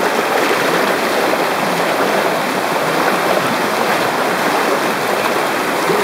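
Shallow river flowing fast over its bed: a steady, loud rush of water.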